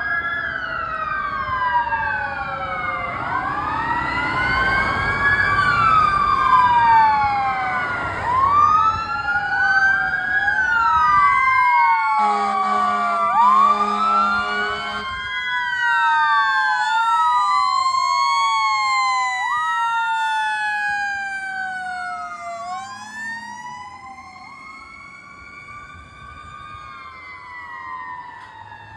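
Emergency-vehicle sirens from a medic unit and a fire engine responding: several electronic sirens wailing and sweeping up and down over one another. A horn sounds in a few short blasts about halfway through. A heavy engine rumbles underneath in the first several seconds, and the sirens fade over the last several seconds.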